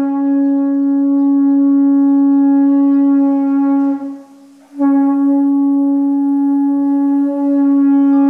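Conch shell (shankha) blown in two long, steady blasts on the same note, with a short break about four seconds in.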